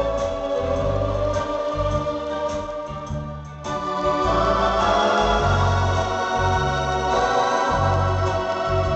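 Accordion playing a slow tune live: held chords over a bass line that pulses in even steps. About three and a half seconds in it breaks off briefly, then comes back fuller and louder.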